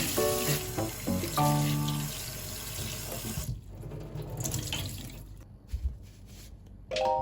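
Tap water running into a sink, with background music playing over it for the first couple of seconds. The water noise drops away about three and a half seconds in, a few light knocks follow, and the music comes back near the end.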